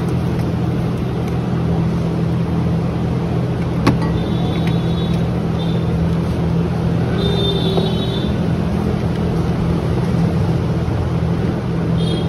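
Steady mechanical hum with a low drone, with one sharp click about four seconds in and a few brief high chirps.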